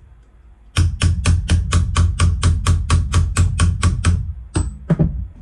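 Small hammer tapping a roll pin into the shell catch of a Benelli M4 shotgun receiver. It is a quick, steady run of about five taps a second for about three seconds, then two more taps near the end.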